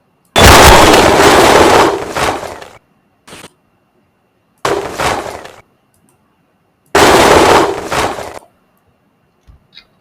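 Three loud whoosh sound effects played back in a row, each a rushing burst that starts suddenly and trails off; the first lasts about two seconds, the other two about a second each.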